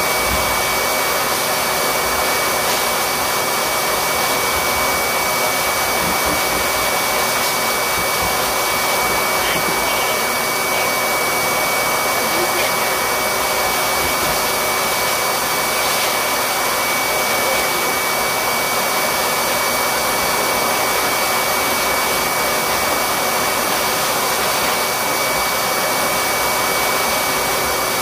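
Steady rushing blower noise with a thin high whine, running at an even level throughout.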